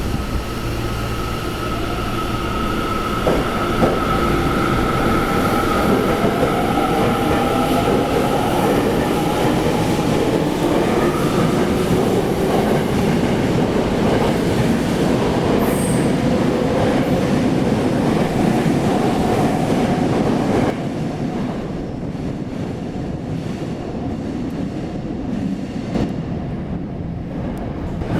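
Tokyo Metro 10000 series subway train pulling out of the station. Its inverter and traction motors whine in several rising tones as it accelerates, over the rumble and clatter of the wheels on the rails. The sound drops off a little about two-thirds of the way through.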